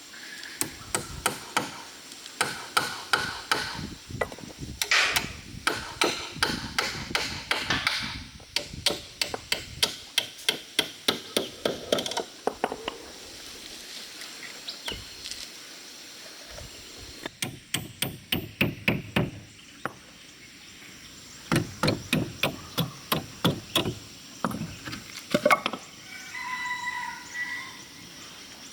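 Hammer blows on wood in quick runs of about three strikes a second, each run lasting a few seconds, with pauses between runs.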